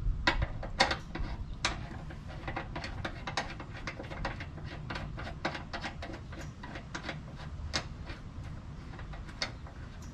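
Oil tank drain plug, with a new crush washer, being refitted and tightened under an air-cooled Porsche 911SC: a run of sharp clicks, uneven and several a second, loudest in the first two seconds.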